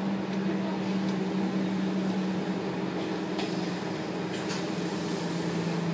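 Scania K280UB city bus heard from the passenger cabin: a steady drone from its engine and driveline, dropping slightly in pitch about halfway through. Two short clicks come near the end.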